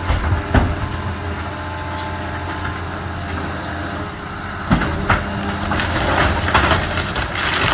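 Diesel engine of heavy demolition machinery running steadily, with sharp knocks about half a second in and again near five seconds, followed by a stretch of cracking and crunching as the house is torn down.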